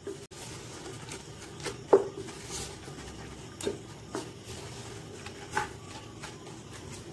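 Wooden spatula stirring raw minced mutton, soaked chana dal and spices in a pressure cooker, with a few soft knocks of the spatula against the pot.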